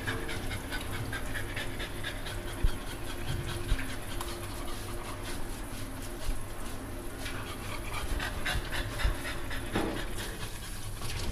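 French bulldog panting, short open-mouthed breaths one after another, over a steady low hum.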